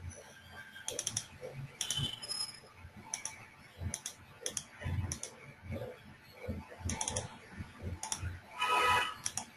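Irregular clicking and tapping at a computer keyboard, about one or two clicks a second, with some soft low thuds. About a second before the end comes a short pitched tone lasting about half a second, the loudest sound.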